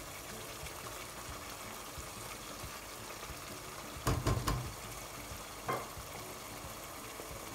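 Lamb curry sizzling and bubbling in a pot over medium-high heat as its spices fry down, with a spatula stirring it. The spatula knocks against the pot a few times about four seconds in and once more shortly before six seconds.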